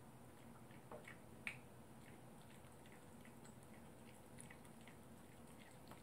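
Faint, scattered clicks and crunches of a poodle chewing a Greenies dental chew, with one sharper click about a second and a half in.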